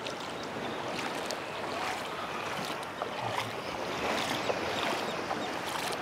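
Seaside ambience at a calm beach: a steady hiss of gentle surf and breeze, with a few faint scattered clicks.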